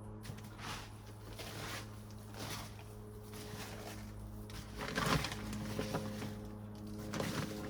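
Background music of sustained held tones, over irregular rustling and scraping as hands dig through potting mix in a grow bag for potatoes; the loudest rustle comes about five seconds in.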